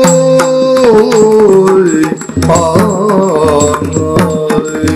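Yakshagana Bhagavata's sung verse, drawn out in long, sliding notes over busy drumming and a steady drone. The singing and drumming stop sharply near the end, leaving the drone sounding alone.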